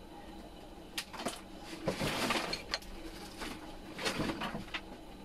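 Scattered light clicks and knocks, with a short rustle about two seconds in, over a faint steady hum.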